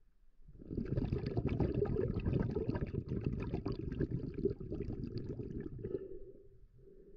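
Water bubbling and churning against an underwater camera: a dense crackle of bubbles that starts about half a second in and dies away near the end.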